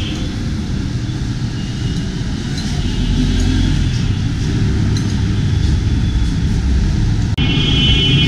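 Steady low rumble of road traffic, with a short high-pitched tone near the end.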